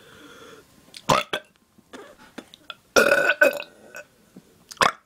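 A person burping on purpose: a long, loud belch about three seconds in, with shorter sharp bursts about a second in and near the end.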